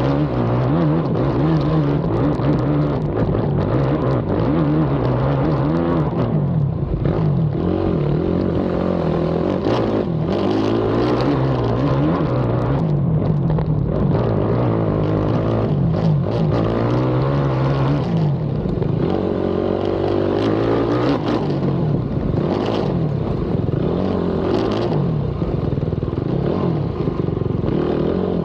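Race ATV engine heard from onboard, revving up and falling back again and again as it is ridden hard around a cross-country race track.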